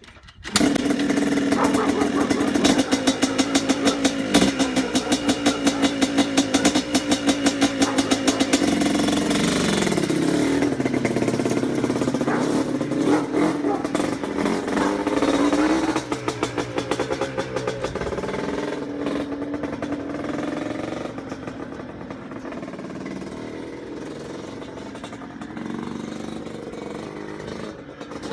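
An ATV engine running with a fast, even pulse. Its pitch drops around ten seconds in, then rises and falls as it revs, and it runs quieter over the second half.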